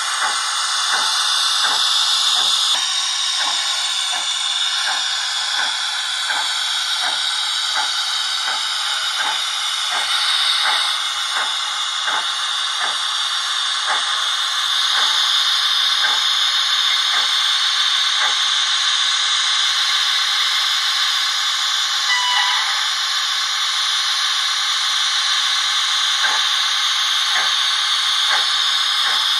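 Steam-locomotive sound from the Howes sound decoder in a Dapol Terrier model tank engine, playing through its small speaker. A steady hiss runs under evenly spaced chuffs, which slow from about two a second to about one a second as the engine runs.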